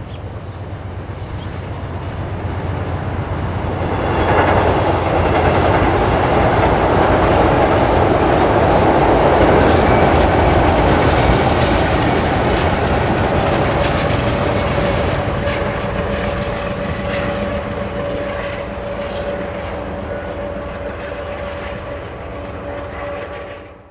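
Amtrak passenger train crossing a steel truss railroad bridge: wheels rumbling and clacking over the rails, building over the first few seconds, loudest for several seconds, then slowly fading. A steady hum-like tone comes in over the rumble in the second half.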